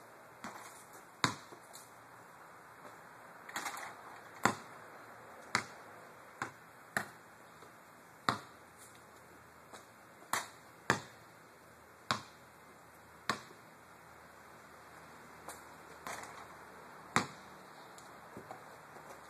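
Basketball shooting practice on a driveway: a basketball thumping on the concrete and striking the hoop, in sharp, irregular knocks roughly one a second, with a quieter stretch about two-thirds of the way through.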